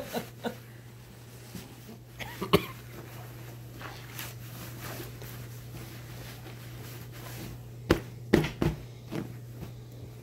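Fabric rustling and soft handling noises as a pillow insert is pushed and worked into a cloth pillowcase, over a low steady hum. A short sharp sound comes about two and a half seconds in, and a few sharp knocks follow close together near the end.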